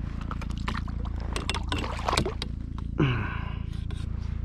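Fishing gear and a freshly caught flounder being handled in a kayak: scattered small clicks and rattles over a steady low rumble. A man's voice breaks in twice briefly, falling in pitch, about two and three seconds in.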